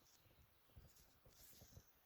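Near silence, with a few faint, soft low knocks.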